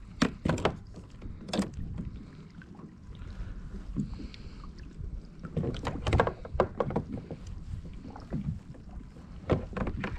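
Irregular knocks against a fishing kayak's hull, in clusters about half a second in, around six seconds in and near the end, over a low wind rumble.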